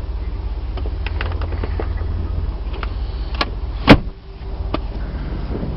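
Light clicks and one loud clunk about four seconds in from the Chevy Tahoe's seat and cargo-area fittings being handled, over a low rumble.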